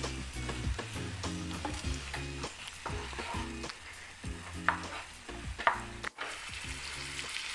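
Fish steaks shallow-frying in oil in a pan, sizzling steadily, while a spatula stirs and turns the pieces with a few short scrapes against the pan.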